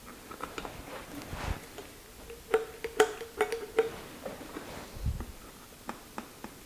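Light metallic clicks and clinks of hand tools and fittings being handled on the shaper's cast-iron casing, with a cluster of brighter ringing clinks about halfway through and a couple of dull knocks.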